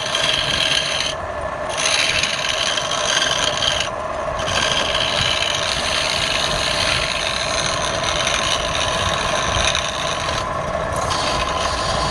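Wood lathe running with a turning tool rubbing against the spinning wood; the tool lifts off briefly about a second in, near four seconds and again around ten and a half seconds.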